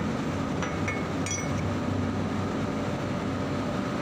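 Steady low machinery hum, like plant-room equipment running, with a few light metal clinks about a second in as dismantled compressor parts are handled.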